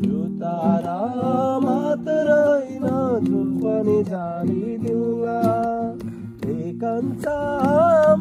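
A voice singing a melody over a strummed acoustic guitar.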